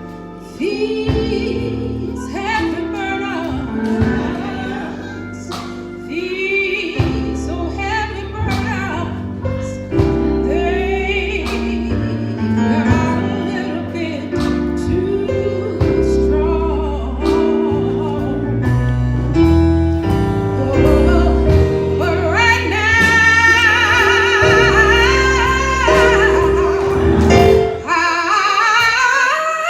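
Gospel choir singing with instrumental accompaniment and a sustained bass line; the voices swell to a fuller, louder passage in the last third.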